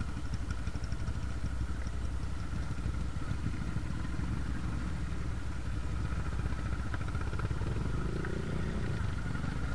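Dirt bike engine idling: a steady, rapid low pulsing with no revving.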